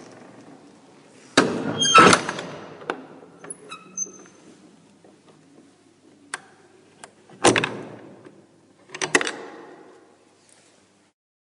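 A door being opened and shut: a series of latch clicks and knocks, with a short squeak about four seconds in. The loudest knocks come about two seconds in and again near seven and a half and nine seconds, and the sounds end about a second before the close.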